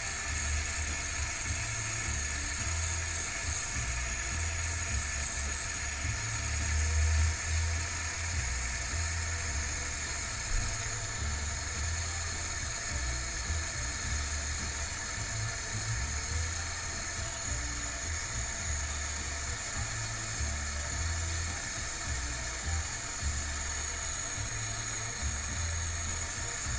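Small acetylene torch with a number 3 tip on an MC tank hissing steadily as its flame heats the leaking blast joint of an aluminum evaporator coil for soldering. An uneven low rumble runs underneath.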